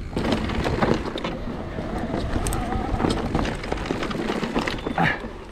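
Mountain bike ridden along a dirt trail: tyres on the ground and the bike rattling and knocking over bumps, with wind rumbling on the microphone.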